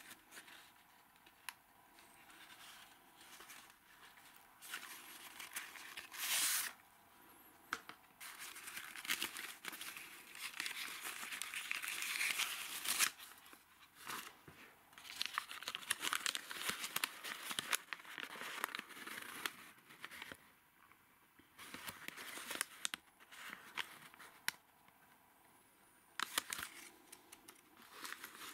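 A paper wrapper crinkling and rustling as it is unfolded from around a valve, with handling of the old cardboard box. It comes in irregular bursts of rustle with sharp crackles, loudest about six seconds in and again near the middle.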